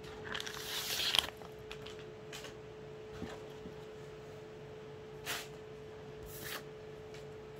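Rustling of a packed cloth suit and its plastic wrapping being handled: a longer rustle in the first second ending in a click, then two short rustles later on, over a steady faint hum.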